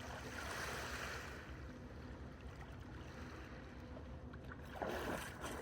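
Steady wash of sea water against the dock, with a brief hiss in the first second or so and a short rustle about five seconds in.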